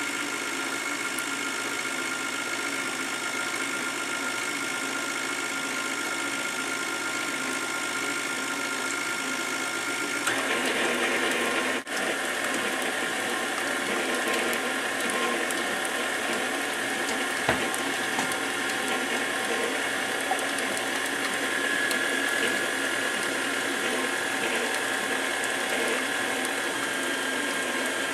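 KitchenAid tilt-head stand mixer running, its beater churning pie batter in a stainless steel bowl. It starts at a slow speed with a steady whine. About ten seconds in it is turned up to a faster speed and gets louder and higher, with a brief dip about twelve seconds in.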